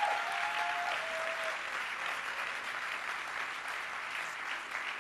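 Audience applauding steadily. A few held cheers from the crowd ride over the clapping in the first second and a half.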